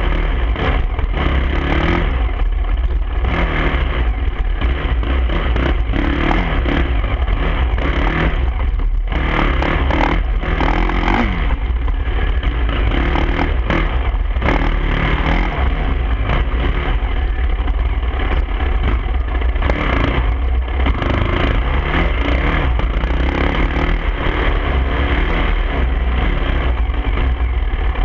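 Dirt bike engine revving up and down with the throttle while riding a rough trail, with a heavy low wind rumble on the bike-mounted microphone.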